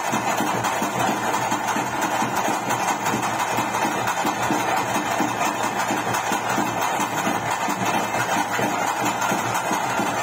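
Bhuta Kola ritual accompaniment: fast, unbroken drumming with a steady droning tone over it.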